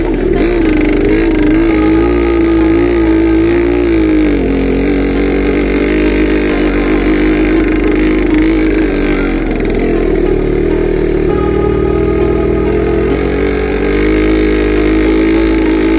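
ATV engine running with the throttle varying: the engine note wavers up and down in the first few seconds, then drops and holds a steadier drone.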